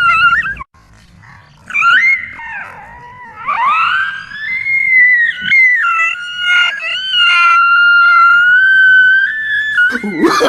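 Dog howling in long, high-pitched calls that glide up and down, then hold one steady note for several seconds near the end, a frightened reaction to a fake lion.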